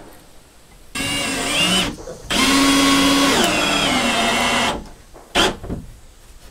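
Cordless drill driving screws into wood in two runs: a short one, then a longer one whose whine drops in pitch partway through. A single sharp click follows near the end.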